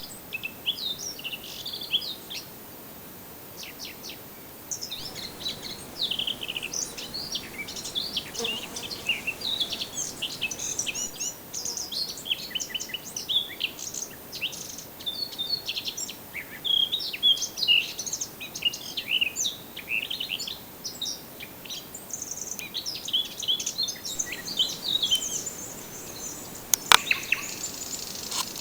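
Several forest birds singing and calling at once, a dense overlap of short high chirps and trills. A single sharp click sounds near the end.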